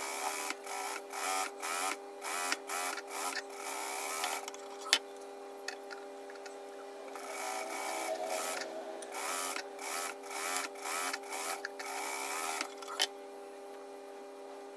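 Industrial sewing machine stitching in short stop-start bursts of about half a second, with two longer runs, as a sleeve seam is sewn. A steady hum runs underneath, and there is a sharp click about five seconds in and another near the end.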